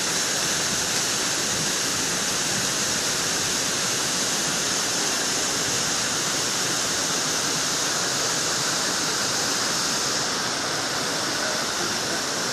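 Steady rush of white water from a mountain torrent tumbling over rocks, a constant hiss with no pauses.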